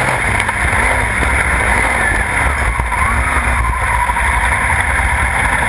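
Sprintcar V8 race engine heard from a camera on the front suspension, running with its revs gently rising and falling under a steady low rumble of wind and track noise.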